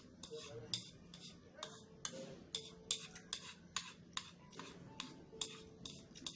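Chopsticks clicking and scraping against a ceramic bowl while instant fried noodles are picked up and eaten, sharp clicks about twice a second.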